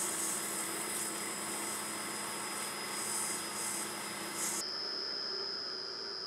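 Sandpaper held against a wooden handle spinning on a wood lathe: a steady hiss of sanding over the running lathe. About four and a half seconds in, the sanding hiss stops and a steady high whine from the running lathe carries on.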